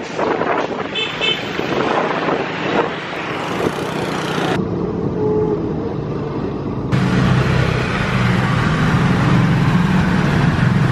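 Motor scooter riding in traffic: a rough rush of wind and road noise. About seven seconds in this gives way to a scooter engine running steadily at low speed with a low, even hum.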